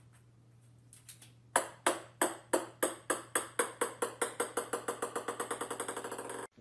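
A ping-pong ball bouncing on a hard wooden floor, its bounces beginning about a second and a half in. Each bounce is a sharp ringing tick, and they come faster and softer as the ball settles, then stop abruptly.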